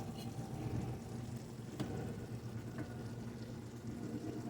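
A steady low hum, with two faint, light clicks a second apart near the middle.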